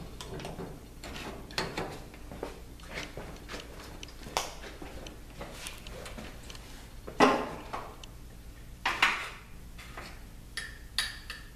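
Handling noises as a PVC fitting and small cans of PVC primer and cement are picked up and carried: scattered clicks and knocks of plastic and metal, with sharper knocks about four, seven and nine seconds in.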